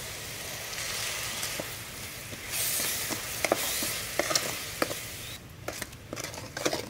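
Sauce, sugar and seasonings sizzling in hot oil in an aluminium pot while a wooden spoon stirs them, with occasional light knocks of the spoon against the pot. The sizzle drops away near the end, leaving mainly the knocks.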